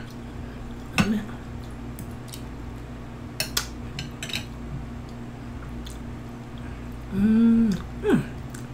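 Close-up eating sounds: scattered sharp wet clicks and smacks of a mouth chewing barbecue beef ribs. About seven seconds in comes a short hummed "mmm" of enjoyment.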